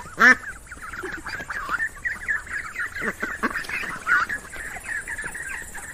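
A flock of ducks quacking, with many overlapping calls and one loud quack right at the start.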